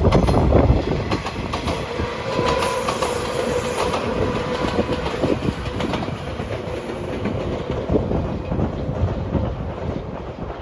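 Train passing close by at speed, its wheels clacking rapidly over the rail joints, loudest in the first second. A steady tone runs through the middle of the pass.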